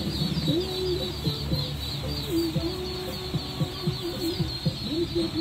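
A large flock of ducklings peeping all at once: a dense, unbroken chorus of many short, high, falling peeps.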